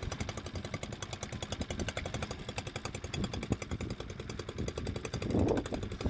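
Engine-driven diving air compressor running with a rapid, even beat, supplying breathing air through the divers' hoses. A splash comes near the end as a diver drops into the water.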